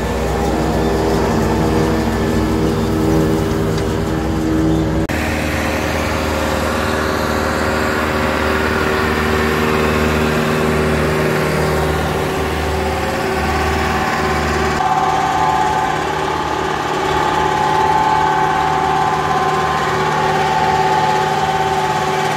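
John Deere tractor engines running steadily under load with PTO-driven silage equipment, a pull-type forage harvester chopping and blowing silage into a wagon among them. The engine tone changes abruptly about five seconds in and again about fifteen seconds in.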